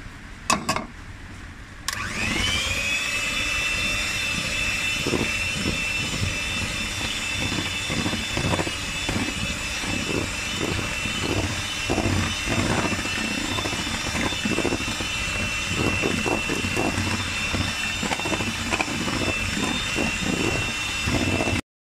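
Electric hand mixer beating eggs into cheesecake batter. The motor switches on about two seconds in with a quick rising whine that settles into a steady high pitch, with an irregular clatter over it, and stops just before the end.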